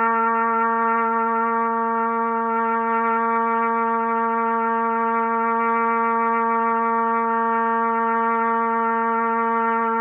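Trumpet holding one long, steady note on C, played open with no valves pressed.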